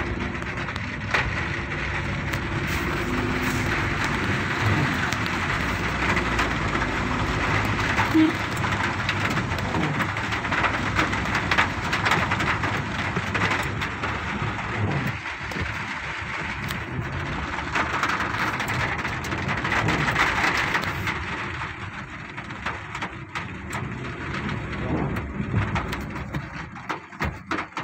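Heavy rain falling on a moving car, heard from inside the cabin as a dense hiss with many sharp drop ticks over the low rumble of the car on the road. It eases a little in the last several seconds.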